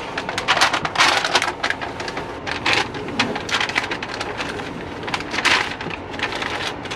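Protective paper masking being peeled off a sheet of acrylic, a dry, irregular crackling rip with denser bursts about a second in and again near three and five and a half seconds.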